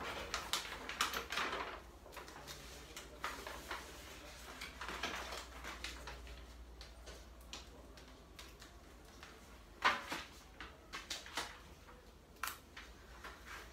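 A large sheet of paper rustling and crackling as it is unfolded and pressed flat against a wall, with scattered taps and clicks from handling; one sharp click about ten seconds in is the loudest.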